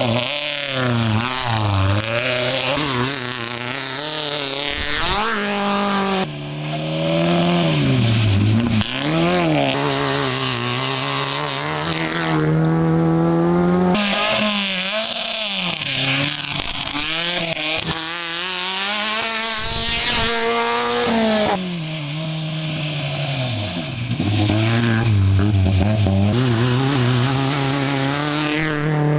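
Several Class A1 rally cars passing one after another at racing speed on a dirt stage. Their engines rev hard, climbing in pitch and dropping back again and again as the drivers shift gears.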